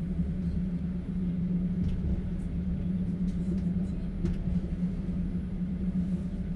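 Running noise inside a moving Russian open-plan sleeper carriage: a steady low rumble with a constant hum, and a few faint clicks and rattles.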